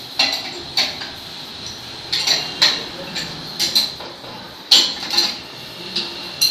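Light metallic clinks of an open spanner on the bolt and clamp of a core cutting machine's stand, about a dozen irregular strikes that ring briefly.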